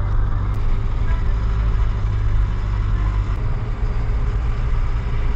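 Truck engine running steadily on the move, a low drone mixed with road noise, heard from inside the cab.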